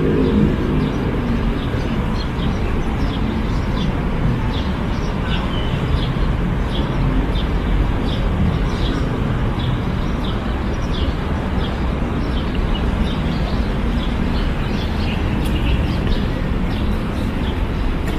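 Steady low rumble of city traffic, with small birds chirping again and again above it.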